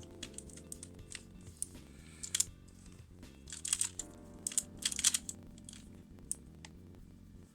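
QiYi MS Pyraminx, a magnetic plastic speed puzzle, being turned fast in a solve: irregular bursts of plastic clicks and clacks, densest a few seconds in, over steady background music.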